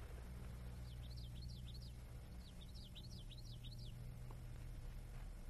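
A small bird singing two short bursts of quick, high chirps, one after the other, over a steady low hum.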